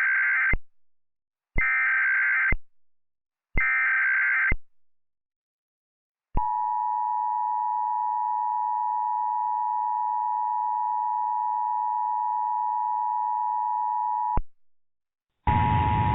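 Emergency Alert System SAME header: three one-second bursts of warbling data tones, a second apart, carrying the Emergency Action Notification (EAN) code. After a short pause comes the steady two-tone EAS attention signal, which holds for about eight seconds and then cuts off. A hissy, noisy stretch begins near the end.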